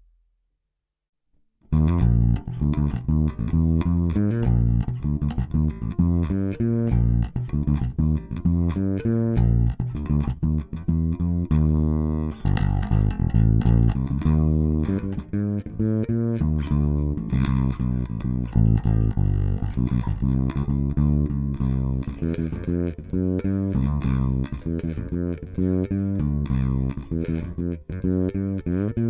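Crews Maniac Sound Uncle Fat Ash fretless bass played solo, a steady run of notes, recorded dry through a DI with no amp, EQ, compression or effects. It starts after a short silence of under two seconds.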